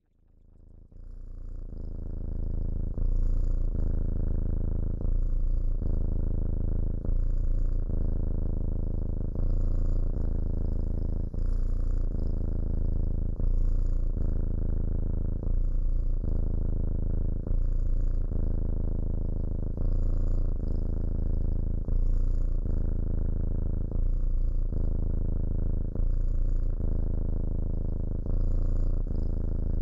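A domestic cat purring steadily, swelling and easing in an even in-and-out cycle about every two seconds. The purr fades in over the first few seconds.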